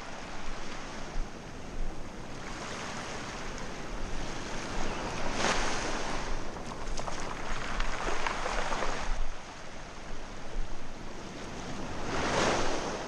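Small waves breaking and washing up a pebble beach, swelling and fading every few seconds, with wind buffeting the microphone.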